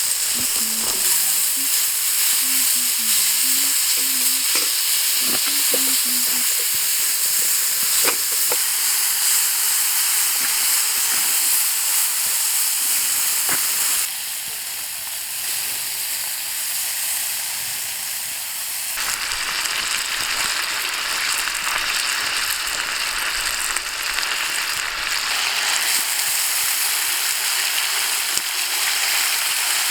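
A steady sizzling hiss, like food frying in a pan, with a few light clicks. It drops suddenly in level about fourteen seconds in and comes back up about five seconds later.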